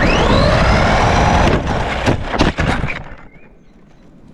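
RC car accelerating hard with its motor whining up in pitch over a loud rushing noise, then several sharp knocks and bangs over about a second as it hits something. After that it fades away.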